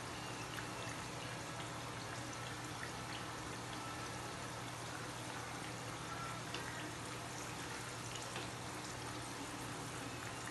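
Water making a steady hiss with faint small pops and ticks scattered through it, over a low steady hum.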